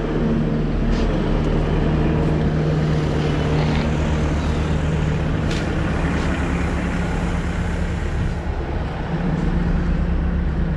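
Engine of a piece of construction equipment running steadily at idle, with a few light clicks over it.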